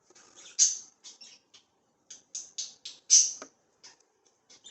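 Young budgerigars chirping and squawking in a string of short, high-pitched calls, two of them louder, about half a second in and about three seconds in.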